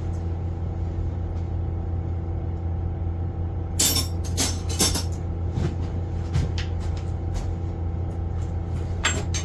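Mini excavator engine idling steadily, with sharp metal clinks and clanks of a wrench working on the quick coupler's adjusting bolt about four to five seconds in and again near the end.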